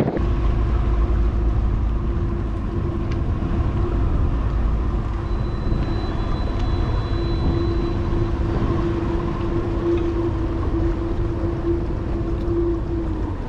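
Outboard motor of an aluminum bass boat running steadily at low speed, an even drone over a low rumble, then cutting off abruptly at the end.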